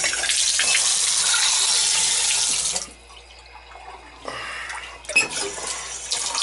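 Water running hard from the spout of a three-handle tub/shower faucet, cut off about three seconds in. A lighter flow follows, with a sharp knock near the end as the handles are worked. The faucet is being run to test a freshly replaced seat and washers.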